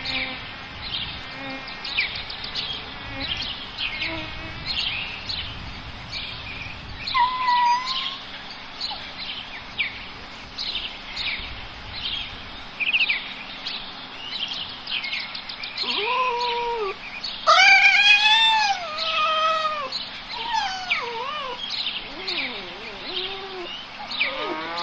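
Small birds chirping throughout. From about 16 seconds in, an animal gives a run of drawn-out calls that rise and fall in pitch. The loudest call comes near 18 seconds, and shorter ones follow.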